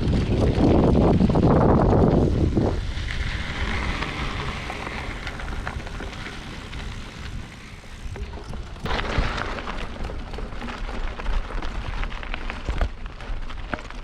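Mountain bike being ridden off-road: wind rushing over the microphone, loudest in the first few seconds, with tyres crackling over dirt and small knocks and rattles from bumps.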